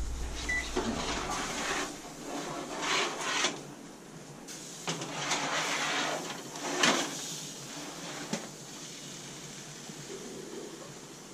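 Oven door opened and a metal pan slid onto the oven rack: scraping and clanking of metal on metal, with the sharpest clank about seven seconds in.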